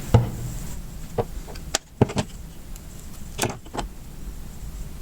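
A few light, separate clicks and taps from a small smartwatch and its glued-on back being picked up and handled on a work surface.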